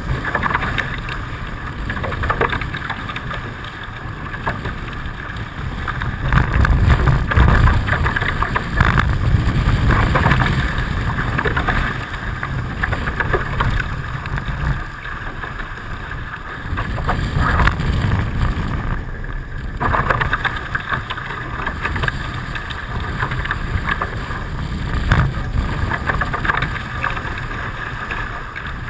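Wind buffeting the microphone over the rush of water along the hulls of a Hobie 16 catamaran under sail, a loud, uneven rumble that swells from about six seconds in.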